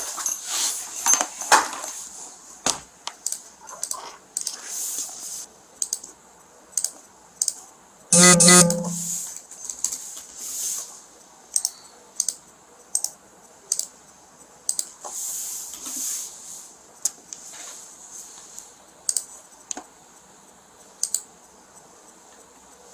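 Scattered light clicks and taps at irregular intervals, with one short buzzing tone about eight seconds in, the loudest sound. A faint steady high-pitched whine runs underneath.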